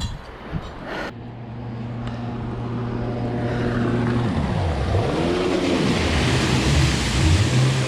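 A motor engine passing, running steadily and growing louder, its pitch dipping and rising about halfway through.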